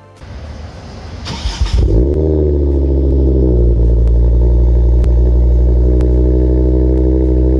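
Ford Focus RS Mk2's turbocharged 2.5-litre five-cylinder engine cranking and catching about two seconds in, its revs flaring briefly and then settling to a steady idle. It is heard through a newly fitted KMS Thunderstorm rear exhaust section with two rear silencer boxes.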